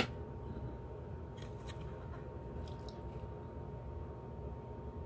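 Handling of a plastic trading-card holder: one sharp click at the start, then a few faint taps and rustles, over a faint steady hum.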